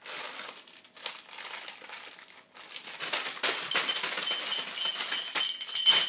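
A baby crinkling and shaking a rustly toy, dense crackling rustles, with a small bell starting to jingle about halfway through.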